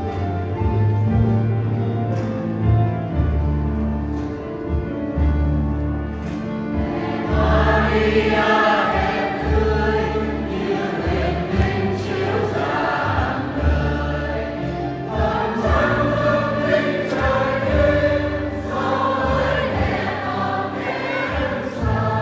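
Church choir singing a hymn with instrumental accompaniment. Held chords with deep bass notes play alone at first, and the voices come in about seven seconds in.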